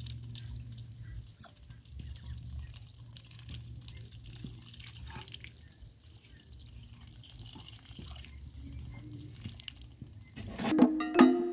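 Muscovy ducks drinking and dabbling at a metal basin of water: faint splashing and bill-dipping sounds over a low steady hum. Music comes back in loudly near the end.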